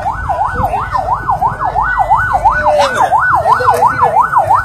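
Electronic emergency siren on a fast yelp, its pitch sweeping up and down about four times a second.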